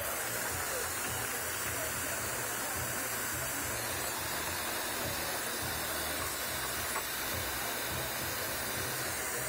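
Steady hiss of glassworking bench torches burning.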